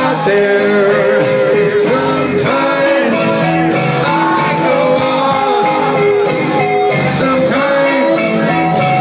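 Live rock band playing loud: a singer holding sung lines over electric guitars and drums.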